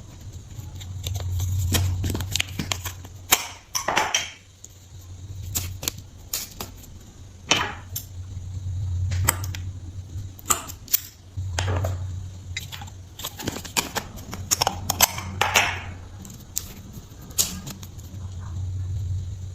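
Slime being squeezed and poked by hand, giving off irregular sharp pops and clicks, with a low rumble that swells every few seconds.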